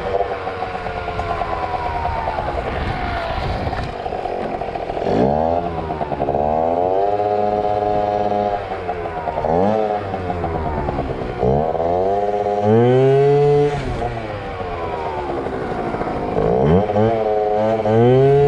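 Yamaha ZR Evo two-stroke scooter engine revved hard again and again, the pitch sweeping up, holding high for a second or so, then dropping, about four times, as the rider tries to lift the front wheel.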